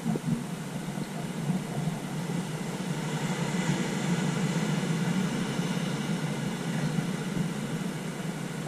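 Ocean surf breaking over rocks on the shore: a steady rush of waves that swells a little about three to four seconds in.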